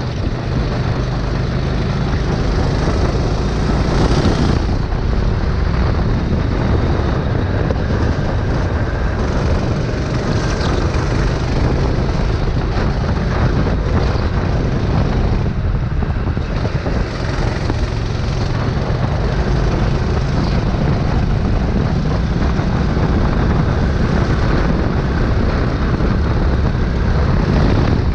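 A racing kart's engine running at speed, mixed with heavy wind noise on the onboard camera's microphone, steady in level throughout.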